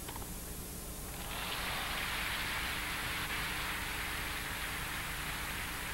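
Tennis crowd applauding at the end of a point. The clapping swells in about a second in and keeps on steadily.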